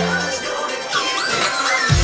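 Electronic dance music played in a live DJ set. The bass and kick drop out about a third of a second in, leaving a short breakdown with high sliding, wavering sounds over it, and the full bass beat comes back in just before the end.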